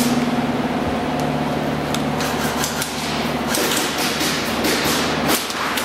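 Irregular sharp snaps of airsoft guns firing, several in quick succession in the second half, over a steady low hum.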